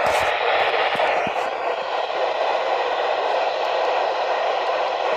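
Radio static: a steady hiss from a weather-alert radio receiver between broadcasts, with a few sharp crackles near the start and about a second in.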